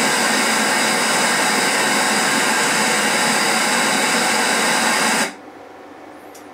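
Steady hiss of test noise from a Dolby channel-check demo track, played through one speaker of a home-theatre system driven by an assembled 7.1 amplifier. It cuts off suddenly about five seconds in.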